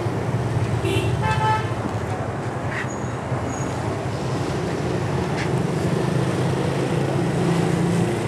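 Road traffic noise with a steady low engine hum, and a short vehicle horn toot about a second in.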